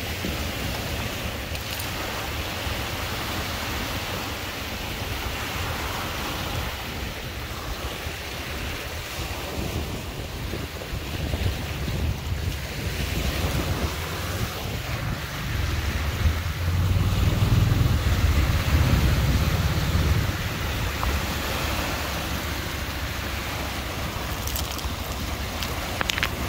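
Lake waves washing on the shore with wind buffeting the microphone; the wind rumble gusts louder about two-thirds of the way through.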